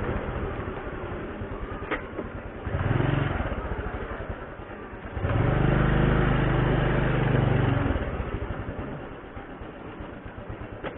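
Motor scooter engine running at low speed with a fast pulse. The throttle opens briefly about three seconds in and again for a couple of seconds in the middle, then eases back toward idle as the scooter slows.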